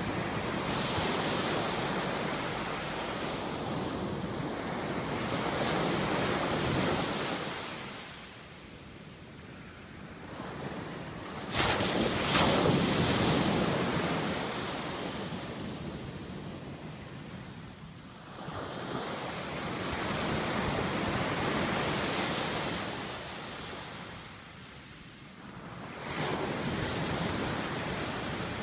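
Ocean surf: waves breaking on the shore and washing back, the noise swelling and fading every several seconds, with the loudest wave crashing in suddenly about eleven seconds in.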